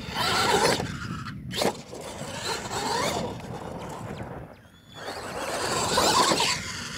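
R/C monster truck driving on a dirt track: tyres scrabbling and scraping through loose dirt with motor noise, swelling and fading as the truck speeds up and slows, with a brief lull a little past the middle.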